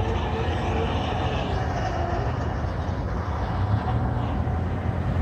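Steady low vehicle rumble at a railroad grade crossing as a freight train moves off, with a few faint short tones in the first second or two.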